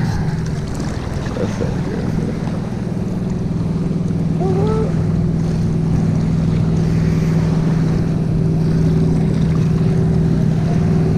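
Steady low drone of a motorboat engine running out on the lake, with wind buffeting the microphone. A small splash comes right at the start as a released fish drops into the water.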